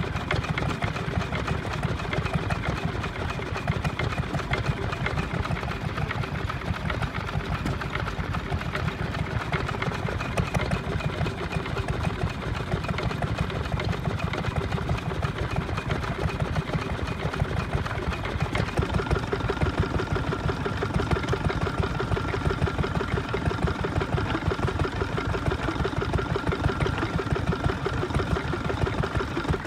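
Small vintage stationary engines running steadily with a fast, even beat. A steady high tone joins about two-thirds of the way in.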